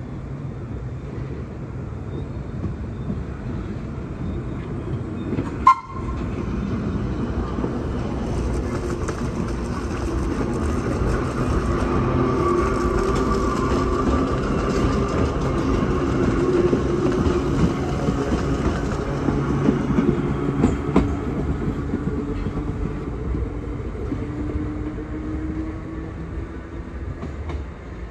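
BMT Standard subway train running on the rails, a steady rumble with a whine that rises and falls through the middle stretch. There is one sharp click about six seconds in.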